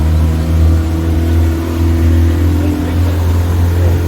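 A boat's engine running steadily under way: a loud, even low drone with a steady pitch.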